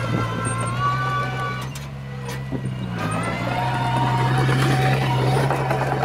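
Crawler bulldozer's diesel engine running steadily under load, with higher whining tones over it, strongest in the second half.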